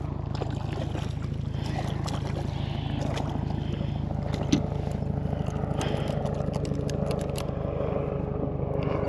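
An engine drones steadily, a low hum with a fast even flutter. Light clicks and taps scatter over it, with one sharper knock about halfway through, as the porgy is hauled in on the line and handled.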